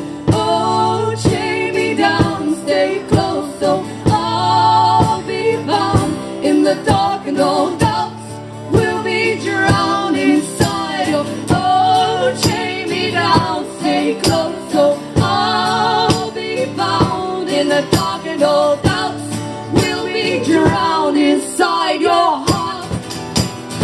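Live folk-rock song: women's voices singing long held notes in harmony over strummed acoustic guitar with an even driving beat.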